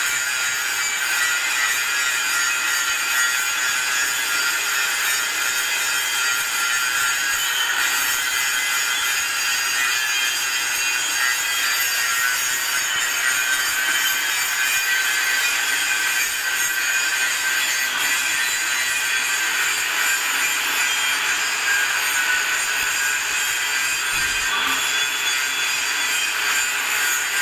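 Angle grinder with an abrasive disc grinding the end of a steel pipe section, a steady high-pitched grinding hiss and whine that runs without a break.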